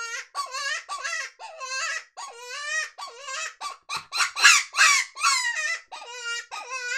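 Dog Soldier 1C hand predator call blown as a prey distress sound at a subtle, lowish volume: a rapid string of short, high-pitched cries, two or three a second, loudest around the middle.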